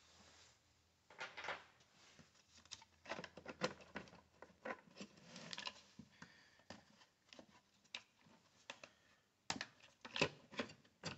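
Faint, scattered clicks, taps and rubbing of parts being handled as a Dolmar chainsaw is taken apart to reach its carburetor, with a few sharper clicks near the end.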